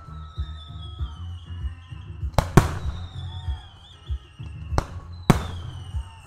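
Aerial firework shells bursting with sharp bangs: two close together about halfway through, then two more near the end, over music with a steady bass beat.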